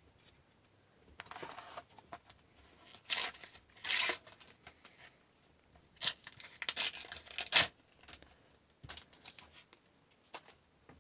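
Sticker packs being torn open and the stickers handled: several short bursts of paper tearing and rustling with quiet gaps between.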